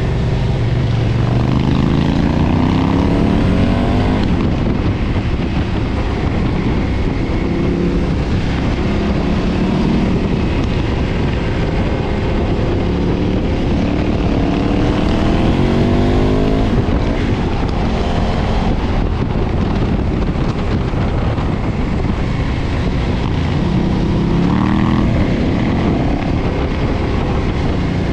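2013 KTM 990's V-twin engine through its stock exhaust, under way, over steady wind rush. The revs climb several times with a rising pitch, then break off and drop.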